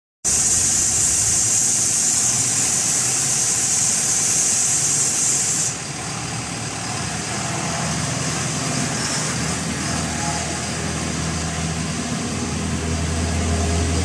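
Engine of a self-loading concrete mixer running, its low hum growing louder near the end as the machine gets under way. For the first five and a half seconds a steady high hiss sits over it and then cuts off abruptly.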